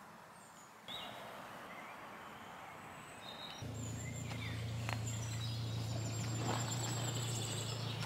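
Outdoor ambience with small birds chirping. A steady low hum comes in about three and a half seconds in and runs on under the chirps.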